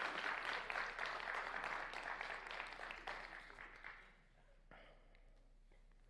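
Congregation applauding, the clapping dying away about four seconds in.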